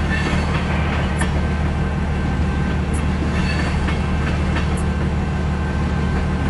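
Cars of a CN mixed-freight train rolling slowly past a grade crossing: a steady low rumble with a few sharp wheel clicks spaced well apart.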